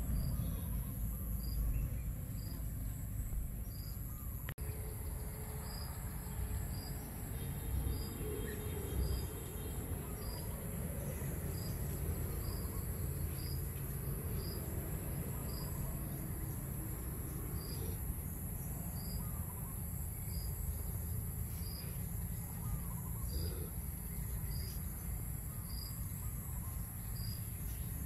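Outdoor insect chorus: a steady high buzzing with a short chirp repeating roughly every second, over a low background rumble.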